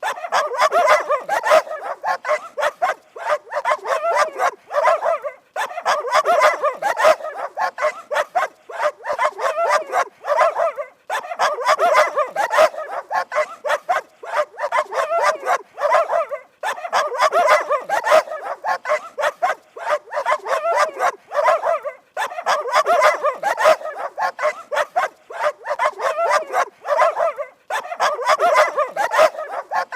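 Dogs barking rapidly and without letup, with a brief pause about every five and a half seconds as the sequence repeats.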